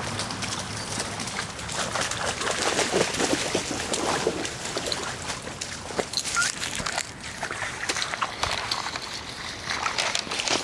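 Feet wading and splashing through a shallow, rocky creek in irregular steps, over the steady trickle of the stream running across stones.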